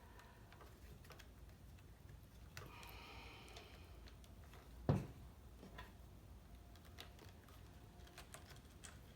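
Faint small clicks and taps of wires and plastic parts being handled as the cord wires are stuffed into a circular saw's housing, with one louder knock about five seconds in.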